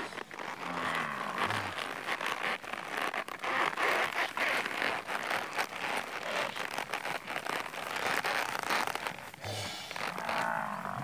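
Hooves of a group of Nelore calves trotting and running over dirt and grass: a dense, irregular patter of hoofbeats and scuffing.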